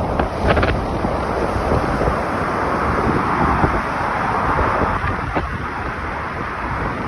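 Strong wind rushing and buffeting the microphone in a storm, with a gust swelling in the middle.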